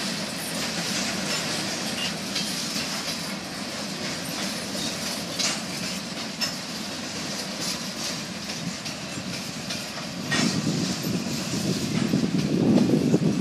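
A freight train of covered hopper cars rolling past at low speed, with a steady rush of steel wheels on rail and scattered sharp clacks at the rail joints. A louder low rumble rises near the end as the last cars go by.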